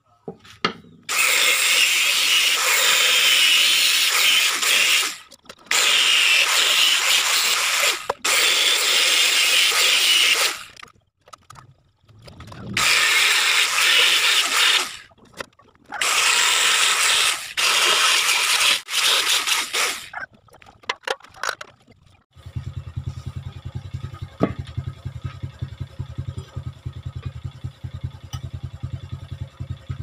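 Electric angle grinder grinding on a steel tank, in several loud bursts of a few seconds each with short breaks between them. In the last third a steady low hum with a fast rattle takes over.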